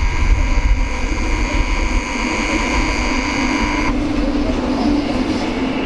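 Electric multiple-unit train rolling past with a steady high-pitched metallic squeal that cuts off suddenly about four seconds in, then the low hum of its electric drive over the rumble of the wheels.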